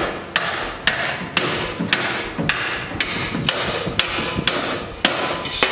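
Hammer blows on the rusted steel bumper mounting of a 1950 Ford, about two a second, each a sharp metallic hit with a short ring, knocking the rusted-on bumper loose for removal.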